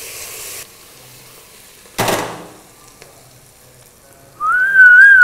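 Sliced onions sizzling in hot oil in a pot, the hiss stopping abruptly just after the start. About two seconds in there is a single sharp knock. Near the end a person whistles one wavering note for about a second, the loudest sound.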